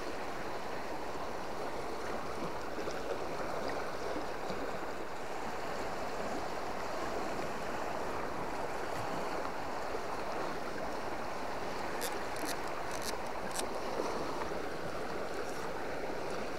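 River current flowing steadily, an even rushing of water, with a few faint high ticks about twelve seconds in.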